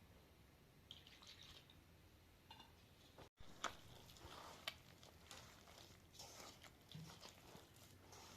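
Near silence with faint, scattered small clicks and soft rustles, and a brief dropout a little over three seconds in.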